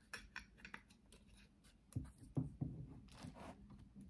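Handling noise from a plastic selfie stick being adjusted: a run of light clicks, then a few soft thumps about two seconds in, and a brief scratchy rustle near the end.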